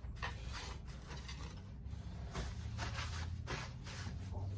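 Short, irregular scraping and rubbing strokes on sheet-metal car panel work, over a low steady hum.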